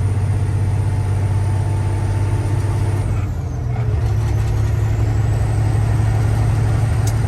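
Semi-truck diesel engine running under a heavy load, heard from inside the cab as a loud, steady low hum. About three and a half seconds in it dips briefly and then comes back slightly higher in pitch.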